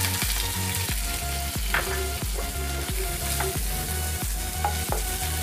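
Roughly cut onions sizzling steadily in a little hot oil in a frying pan while being stirred with a spatula. A quiet background music track with a steady beat plays under it.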